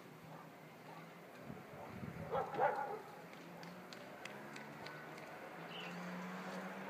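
A short, loud animal call about two and a half seconds in, followed by a few faint high chirps and a low steady hum toward the end.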